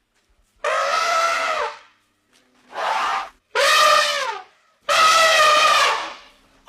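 Elephant trumpeting from a sound-effects library: four separate calls, the first about a second long, then a short one and a second close behind it, and a last call of about a second and a half.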